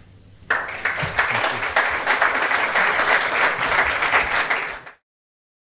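Audience applauding, starting about half a second in and cutting off abruptly at about five seconds.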